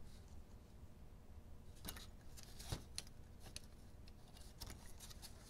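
Small metal clicks and taps of a vintage Tyco Mantua HO-scale diecast steam locomotive being handled as its boiler shell is fitted back onto the chassis: half a dozen light knocks, the sharpest about two and a half seconds in.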